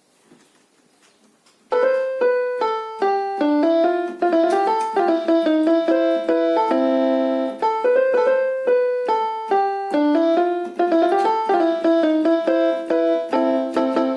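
A beginner's electronic keyboard synthesizer, just repaired, playing a quick melody of notes after about two seconds of near silence: it works on its test after reassembly.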